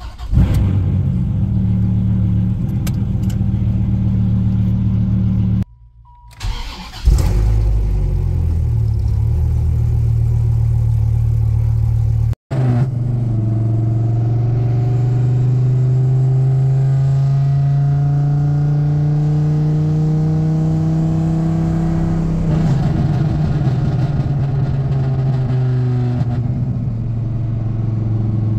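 Dodge Viper's V10 engine heard from inside the cabin through its old exhaust. It runs steadily, with two short breaks where the sound cuts. Then it pulls on the road, its note rising slowly for several seconds before easing back and holding steady.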